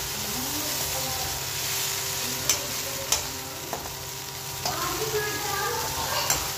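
Poha with peanuts frying in a kadhai, stirred with a slotted metal spatula: a steady sizzle with scraping and several sharp clinks of the spatula against the pan.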